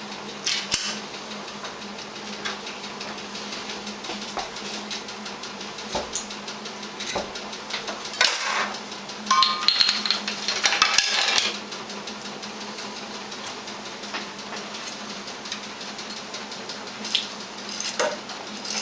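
Kitchen clatter: metal utensils and dishes knocking and clinking, over a steady low hum. The clatter is scattered at first, busiest from about eight to eleven seconds in with a brief metallic ring, then a few more knocks near the end.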